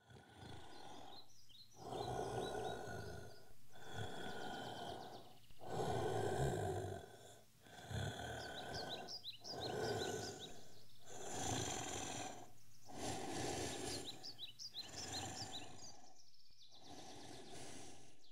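Slow, heavy breathing of a large creature, a rasping breath about every two seconds. Short bird chirps sound in between.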